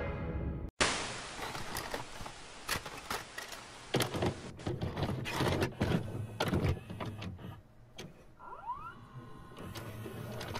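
Videocassette recorder sound effect: sharp mechanical clicks and clunks over a steady tape hiss, with a short rising whine late on.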